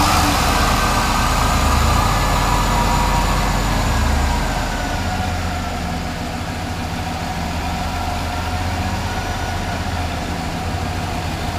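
Freshly rebuilt Ford 351 Windsor V8 running just after its first start, before its ignition timing has been set. It runs a little higher for the first four to five seconds, then settles to a slightly lower, steady idle.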